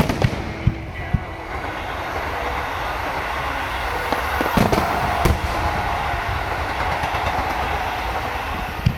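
Fireworks display: a few sharp shell bursts over a steady rushing noise that swells through the middle and eases off near the end.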